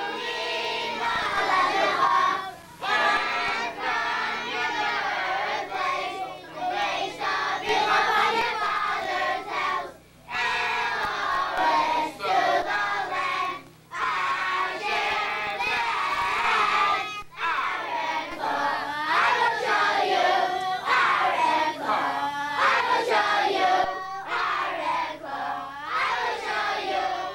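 A class of young boys chanting aloud together in unison in a singsong, with brief pauses between phrases.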